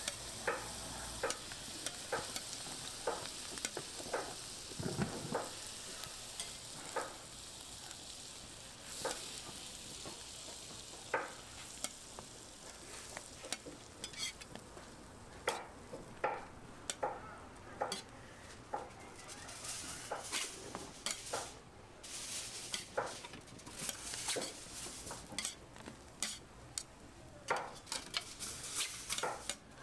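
Butter, burger buns and egg patties sizzling on a flat steel griddle, with repeated sharp clicks and scrapes of metal spatulas against the griddle. The sizzle is strongest for the first dozen seconds and then thins, while the clicks go on.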